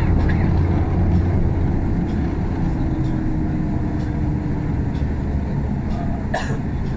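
Cabin noise inside a MAN A85 18.280 bus on the move: the steady low drone of its MAN D0836 six-cylinder diesel mixed with road and tyre noise. A fainter steady hum eases off about three seconds in, and a brief sharp sound comes near the end.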